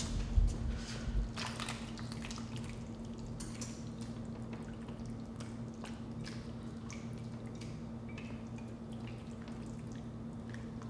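A spatula scraping a thick, wet macaroni casserole mixture out of a mixing bowl into a glass baking dish: irregular soft wet plops and scrapes. A steady low hum runs underneath.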